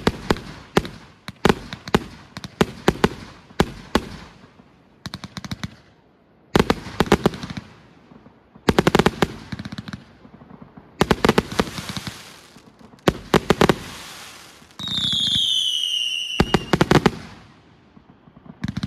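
221-shot firework cake firing: volleys of sharp bangs, several of them in rapid machine-gun-like strings. Near the end a loud whistle falls in pitch for about a second and a half.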